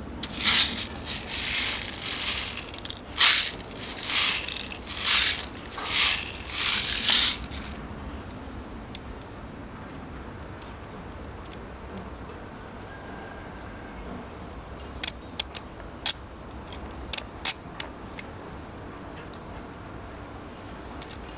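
Airsoft BBs rattling in a bottle in a string of short bursts as they are loaded into a WE M4 gas blowback rifle magazine, then scattered sharp clicks of BBs and magazine parts some seconds later.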